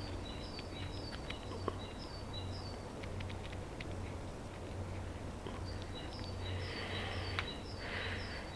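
A small songbird calling two runs of short, high, down-slurred chirps, about two a second, over a steady low background rumble, with a few light clicks.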